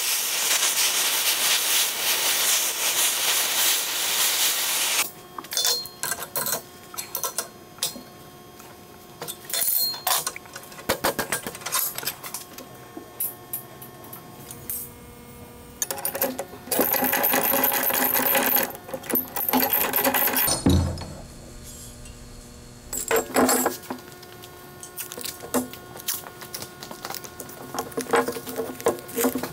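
Oxy-fuel torch flame hissing steadily for the first five seconds or so while it heats a steel bar clamped in a bench vise. Then come scattered metallic clinks and taps as the bar is worked, a second spell of hissing partway through, and a single knock.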